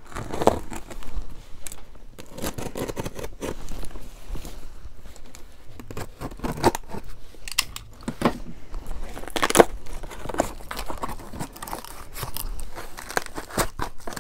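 A cardboard product box and its packaging being opened and handled by hand: rustling with scattered sharp clicks, the sharpest about nine and a half seconds in.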